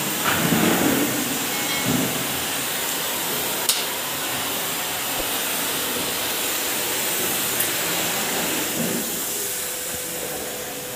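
Steady hiss of an oxy-fuel gas cutting torch cutting the steel collecting electrode plates, with a couple of metal knocks in the first two seconds and a sharp click a little under four seconds in.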